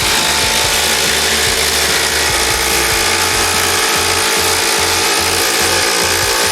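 Cordless impact driver hammering under load, a steady loud rattle, likely driving a fastener into wood.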